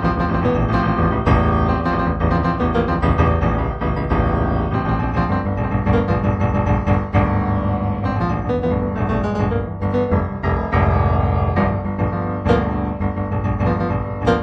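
Solo piano music played as a free improvisation, a steady flow of notes with no speech.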